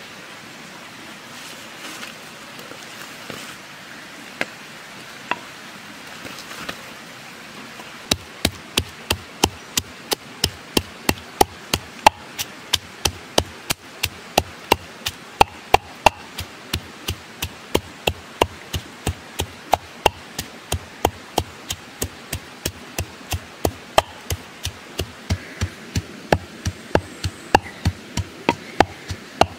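Pestle pounding red chillies in a wooden mortar: steady, even thuds about two to three a second, starting about eight seconds in. Before that only the steady rush of a stream.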